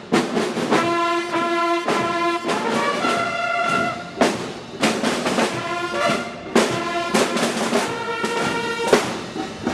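A military band's bugles play short, held notes in phrases, with sharp drum strikes in between.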